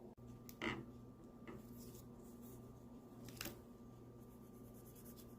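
Faint clicks and handling noises of hand tools being picked up and moved, two louder clicks about a second apart and again near the middle, over a steady low hum.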